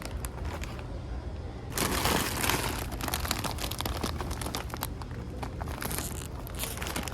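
Crinkling and rustling of handled packaging, loudest for about a second around two seconds in, with scattered crackles and clicks after and another short rustle near the end.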